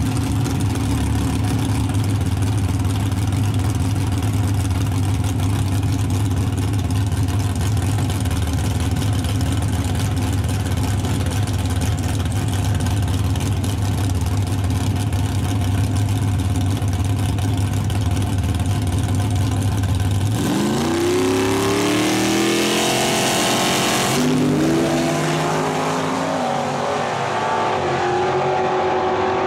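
Two drag-racing pickup trucks, one of them turbocharged, idling loudly side by side at the starting line. About two-thirds of the way in they launch: engine pitch rises sharply, drops at a gear change and climbs again as they pull away down the track.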